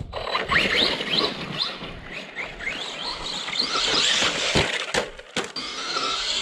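Arrma Big Rock RC monster truck's electric motor whining up again and again in quick bursts of throttle, with its tyres scrabbling on dirt. A few sharp knocks come a little past the middle, then a steadier hiss of the tyres.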